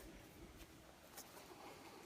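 Near silence: a faint background hush with one light click a little over a second in.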